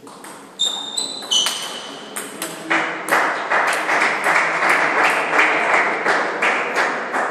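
Table tennis rally: the celluloid ball clicks off rubber-faced paddles and the table with short high pings, about half a dozen strokes in quick succession. The point ends under three seconds in, and a few seconds of quick, rhythmic clapping follows.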